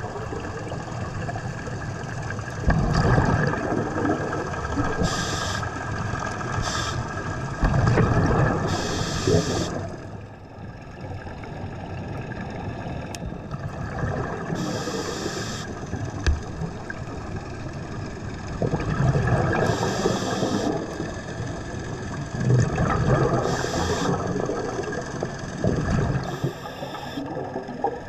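Scuba diver breathing through a regulator underwater: short hisses of inhaled air alternate with louder rumbling bursts of exhaled bubbles, repeating every few seconds.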